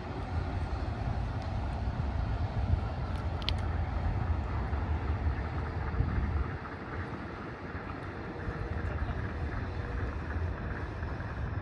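Tokyo Monorail train running along its elevated track, a steady low rumble, easing a little about six and a half seconds in.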